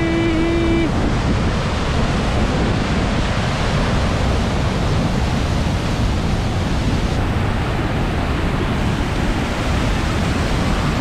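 Large waterfall: heavy whitewater pouring over rock with a loud, steady rush.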